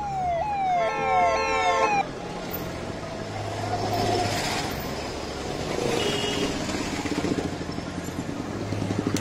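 A vehicle's siren-style horn warbling in quick repeated pitch sweeps, about three a second, with a multi-note horn blast held over it; both cut off abruptly about two seconds in. Street traffic noise follows.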